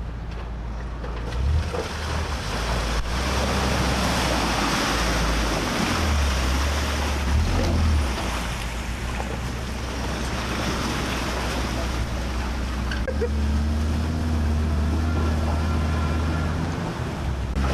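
A Land Rover Defender 4x4's engine runs under load as it wades through a muddy water hole, with water churning and splashing around its wheels. Wind rumbles on the microphone underneath.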